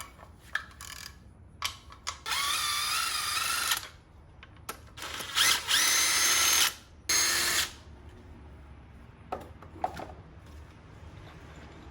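A power tool motor runs in three bursts of one to two seconds each, whining, with the pitch climbing and then holding steady in the middle burst. A few light metallic clicks come before and after the bursts.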